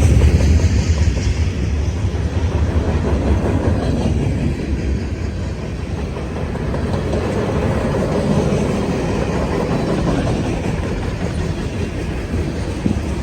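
CSX mixed freight train rolling past at track side: a steady rumble with the clickety-clack of freight car wheels over the rail joints.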